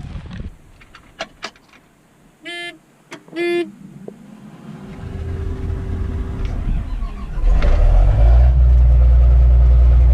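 Clicks of cab controls and two short electronic warning beeps, then a combine's diesel engine starts and runs up to a loud, steady run.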